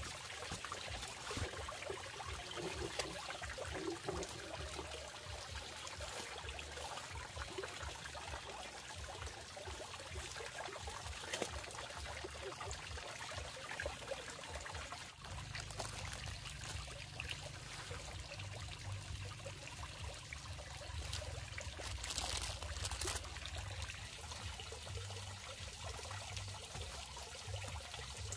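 Water trickling and pouring; about halfway a steady low rumble comes in underneath.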